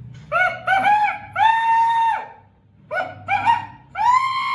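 A woman's voice imitating a rooster's crow (a 'kikirikí'), twice: each crow is a few quick rising syllables ending in a longer held high note.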